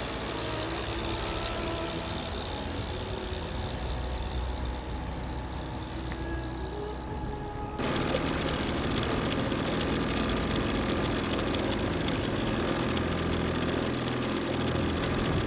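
Yamaha 20 hp outboard motor running steadily, pushing an inflatable tender along. It is heard at a distance at first, then, from about halfway through, close up and louder from on board.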